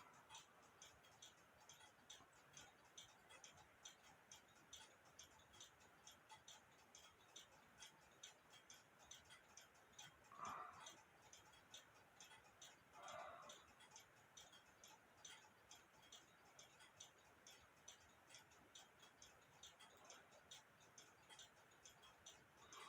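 Faint, steady ticking of a mechanical clock, evenly spaced, with two soft brief sounds near the middle.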